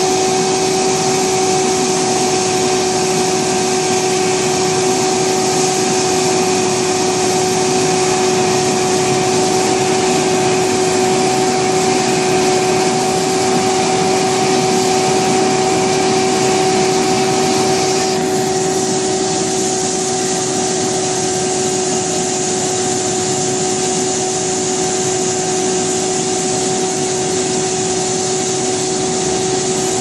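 Diamond wire saw running steadily as its wire cuts through reinforced concrete: a constant machine whine over a dense grinding hiss, turning slightly softer and duller about two-thirds of the way through.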